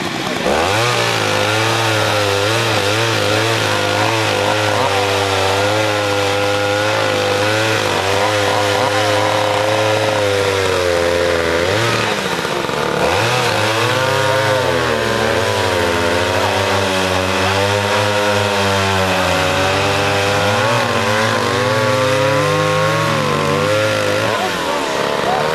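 Stihl Contra (Lightning) two-stroke chainsaw running, its engine speed rising and falling again and again as the throttle is worked, with a few brief drops in revs.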